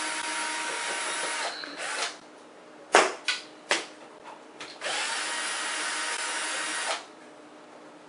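Cordless drill/driver backing out Phillips screws from a ceiling light-fixture mounting strap: the motor whines steadily, stops about a second and a half in, and runs again for about two seconds later on. A few sharp clicks come between the two runs.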